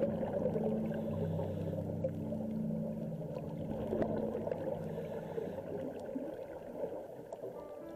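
Muffled underwater sound through a camera housing: gurgling of scuba divers' exhaled bubbles over a steady low hum that fades in the second half.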